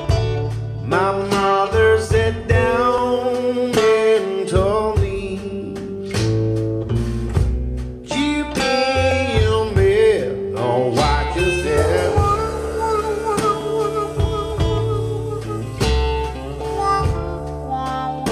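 Blues song led by guitar, with some singing, played back through hi-fi loudspeakers and picked up by a microphone in the room. The speakers are driven first by a Rogers EHF-200 mk2 vacuum-tube integrated amplifier, then by a GATO AMP-150 solid-state integrated amplifier.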